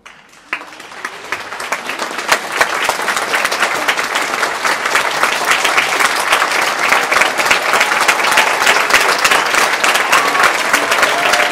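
Theatre audience applauding: a dense clatter of many hands that swells over the first two seconds, holds steady, and cuts off suddenly near the end.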